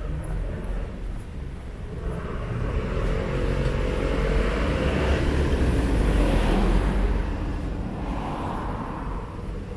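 A motor vehicle passing by: its engine and tyre noise grows louder to a peak about six seconds in, then fades away.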